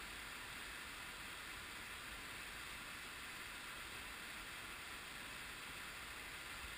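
Whitewater of a river rapid rushing steadily, an even hiss with no change.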